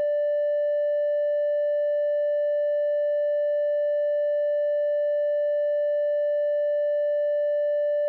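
A single pure electronic tone, like one long beep, held at one steady pitch and volume throughout.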